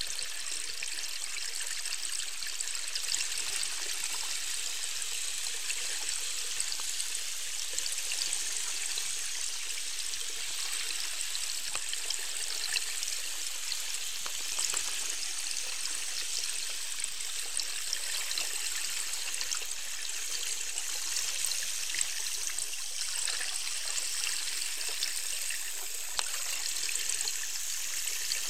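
Steady underwater water noise from a boat-mounted underwater camera in murky river water: an even, fairly high hiss with fine crackling throughout, and no clear whale calls.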